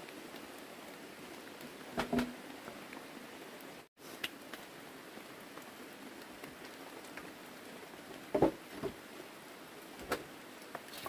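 Steady rain hiss, with a few dull wooden knocks as a log and planks are shifted: a pair about two seconds in, two more just after eight seconds, and one near ten seconds.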